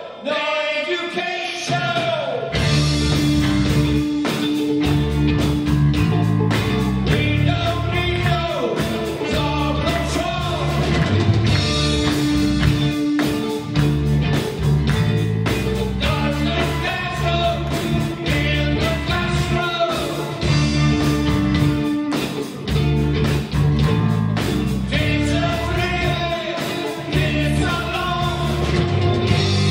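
Live rock band playing: electric guitars, bass guitar and drum kit. After a short guitar lead-in, the bass and drums come in about two and a half seconds in and the full band plays on steadily.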